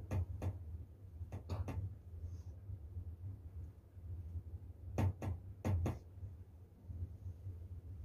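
Hands working on a person's neck and back during a massage, giving a few short taps and slaps in small clusters, a couple near the start and a tighter group about five seconds in. A low steady hum runs underneath.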